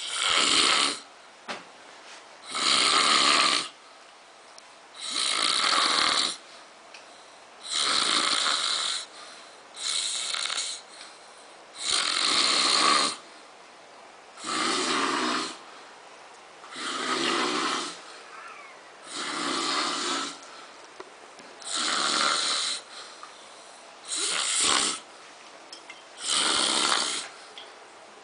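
A drunk man snoring in his sleep: about a dozen snores, each lasting about a second, coming steadily about every two seconds.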